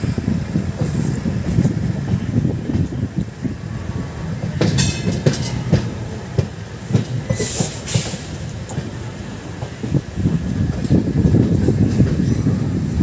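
A passenger train's sleeper coach running on the rails, heard from its open doorway: a steady wheel rumble full of quick rail-joint clicks, with short sharper noises about five and eight seconds in.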